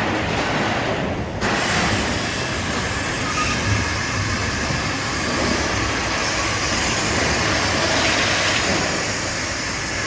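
Steady running noise of industrial machinery in a sheet-metal shop, a constant mechanical rush that steps up suddenly about a second and a half in and then holds steady, with no separate punch strokes.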